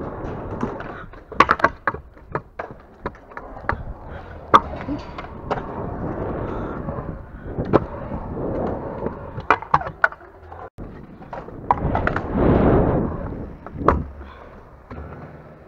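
Stunt scooter wheels rolling over a concrete skatepark surface, punctuated by sharp clacks and knocks of the wheels and deck hitting the ground and ramp edges. The rolling noise swells louder for about a second around twelve seconds in.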